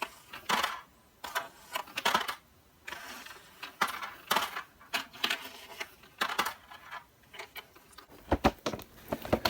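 Irregular clicking and light rattling of small hard plastic and metal parts being handled and put back into their packaging, with a few sharper, louder clicks near the end.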